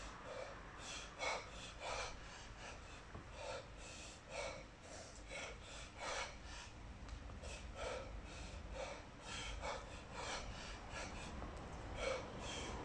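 A man's heavy exertion breathing under a 32 kg kettlebell snatch set: short, sharp, forceful breaths in a steady rhythm, a little more than one a second.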